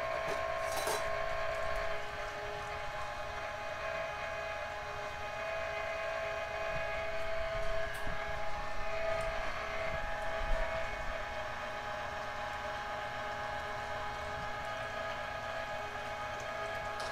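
Electric tomato strainer running, its motor turning the auger that presses tomatoes through the screen to separate the sauce from the seeds and skins. It makes a steady motor hum with a few light knocks.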